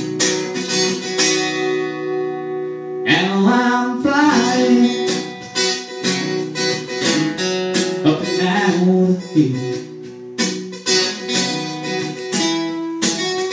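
Two acoustic guitars playing an instrumental break between sung verses: chords strummed steadily, with some sliding melody notes over them.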